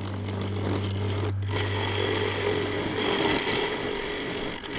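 Wood lathe spinning a yew and epoxy resin blank while a turning tool cuts a recess (mortise) into it for a four-jaw chuck to grip. A steady hum for about the first second, then after a brief break a rough scraping cut.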